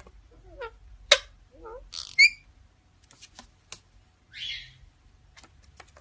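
Indian ringneck parakeets chattering: short warbling notes that slide up and down, sharp clicks, a loud chirp about two seconds in, and a short raspy call around four and a half seconds.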